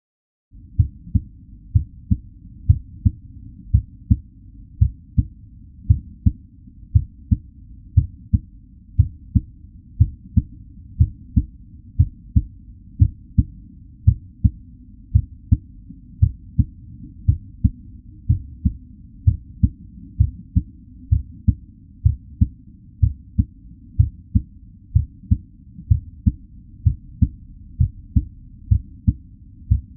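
Human heartbeat at a normal resting rate: a steady run of deep double thumps (lub-dub), about one beat a second, starting about half a second in.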